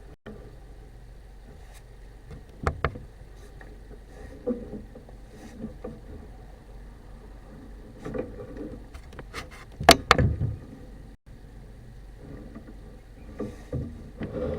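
Irregular knocks and scrapes of equipment inside a sewer pipe, the loudest a short cluster of sharp clatters about ten seconds in.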